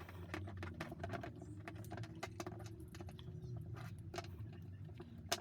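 Scattered light clicks and taps of small tool parts being handled and fitted during reassembly of an impact driver, over a low steady hum.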